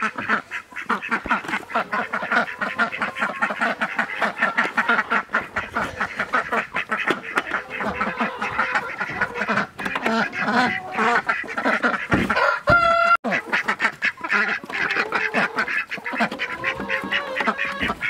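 A flock of ducks quacking, many rapid overlapping calls, with one longer, drawn-out call about two-thirds of the way through.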